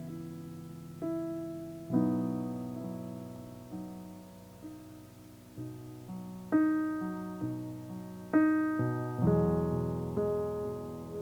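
Slow, calm solo piano music: soft notes and chords struck every second or two and left to ring and fade.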